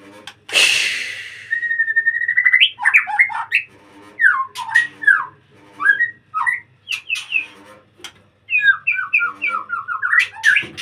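White-rumped shama (murai batu) singing: a harsh rasping note about half a second in, then a held whistle and a run of varied, gliding whistled phrases, ending in a fast series of short repeated notes.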